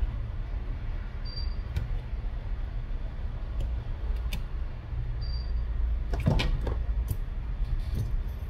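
Small handling sounds as double-sided adhesive tape is pulled from its roll and pressed around the edge of a phone's back cover: scattered light clicks and a brief louder rustle about six seconds in, over a steady low hum.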